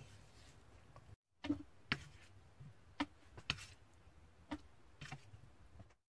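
About half a dozen light, separate clicks and taps as fried shrimp are loaded into a plastic food-processor bowl, pieces landing against the plastic and the blade.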